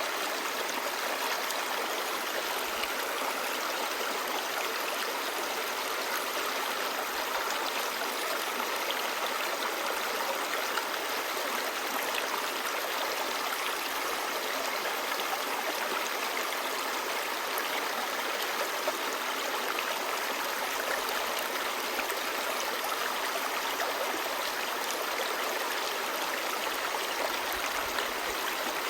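Clear, shallow stream babbling steadily over stones, an even rush of water with small splashes.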